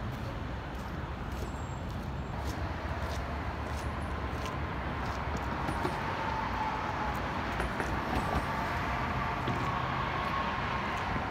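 Road traffic: a steady rush and low rumble of passing cars. In the second half a faint whine slowly falls in pitch as a vehicle goes by.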